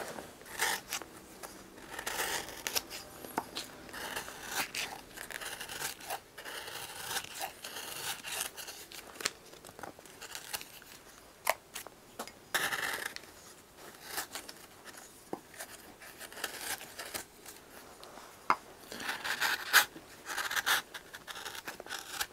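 A shoemaker's knife paring the overhanging edge of a leather heel lift: irregular short slicing and scraping strokes through the leather, with occasional sharp clicks.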